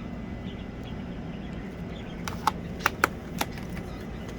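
Steady background hum with four or five sharp clicks and taps a little past halfway, from packaging being handled while unboxing.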